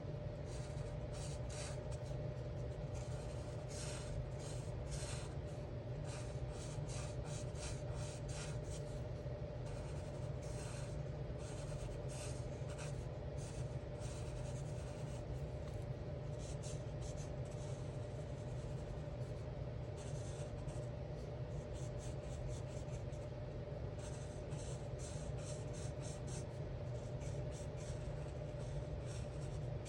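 Alcohol marker tip rubbing across paper in short repeated strokes, several a second, with a sparser stretch midway, over a steady low hum.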